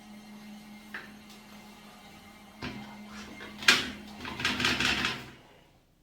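Mini portable washing machine being handled: a steady low motor hum with a couple of clicks, then a sharp plastic knock about two-thirds of the way in and a second of clattering and rustling, like the lid or spin basket being opened and handled. It goes quiet shortly before the end.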